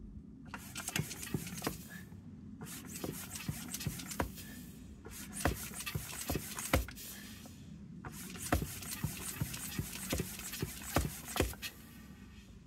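An old hand tyre pump worked in four long strokes, each a rush of hissing air with rattling clicks. It is pressurising a Standard Vanguard clutch slave cylinder to blow out its piston, which stays a bit tight, held by corrosion in the bore.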